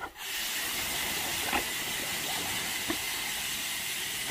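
Steady hiss of a high-pressure water jet from a spray wand, spraying through chain-link fencing.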